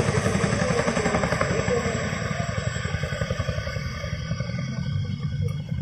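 Helicopter flying past with a fast, steady beat of rotor chop, slowly fading, with voices underneath.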